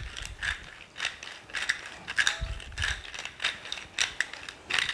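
Salt mill being twisted over a pot, giving clusters of dry ratcheting clicks a few times a second as salt is ground in.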